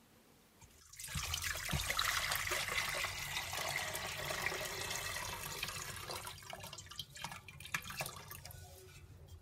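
Water poured from a ceramic jug into a stainless steel pot: a steady splashing pour starts about a second in, then tapers off into a few drips and light knocks near the end.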